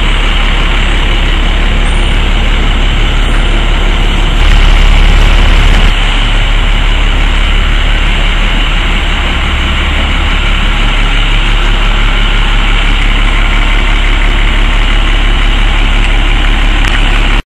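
Cummins L10 six-cylinder turbo diesel of a 1993 International box truck idling steadily with a low rumble, getting louder for a moment about four and a half seconds in.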